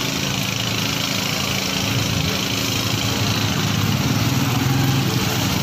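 Engine running steadily at idle, a constant low hum with a hiss above it.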